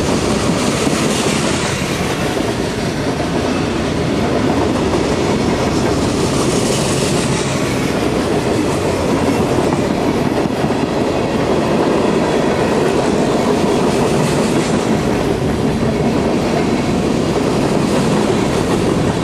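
Tank cars and covered hoppers of a long freight train rolling past close by: a steady, loud noise of steel wheels running on the rails.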